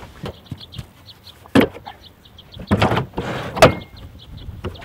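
Knocks and clanks of an IBC container's steel lattice cage and plastic tank being handled on a trailer: a few separate bangs with a short rattle in the middle and a sharp metal clank a little after three and a half seconds in.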